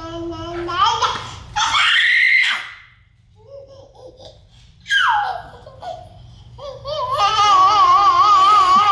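Twin toddlers babbling, squealing and laughing at each other: a held vocal sound at the start, short high squeals, then a long high wavering squeal from about seven seconds in.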